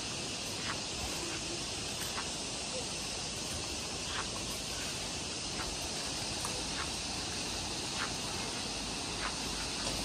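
Steady outdoor hiss of open-air garden ambience, with faint short ticks scattered every second or so.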